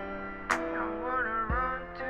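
Background music: a sustained melody with gliding notes over a slow beat, a sharp drum hit about half a second in and a low kick about a second later.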